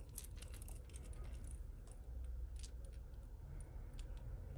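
Costume jewellery clinking faintly as fingers work at a tangled metal chain: small scattered metallic clicks, thickest in the first second and sparser after.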